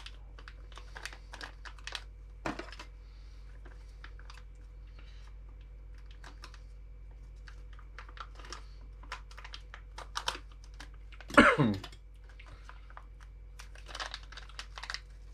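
Small plastic RC car parts, rod ends, clicking and tapping as they are handled and compared, in many light, irregular clicks. One louder, short noise comes about eleven seconds in.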